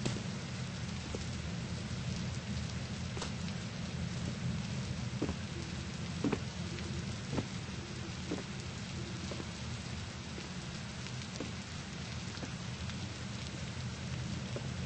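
Steady wash of noise with a strong low rumble, broken by scattered sharp ticks and taps.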